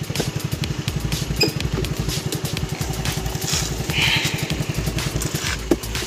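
Small motorcycle engine idling steadily with an even low pulse, and a short knock near the end.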